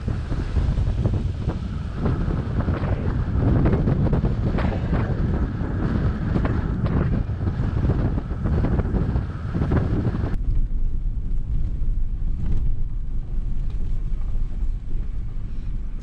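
Wind buffeting the microphone of a camera mounted on a pickup truck's hood as the truck drives a gravel road, over a low road rumble. About ten seconds in the sound cuts suddenly to a duller low rumble of the truck driving, heard inside the cab.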